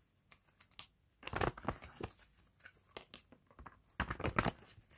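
A deck of tarot cards being shuffled by hand: two bursts of quick card flicks and rustling, one about a second in and another at about four seconds in, with a few soft clicks between.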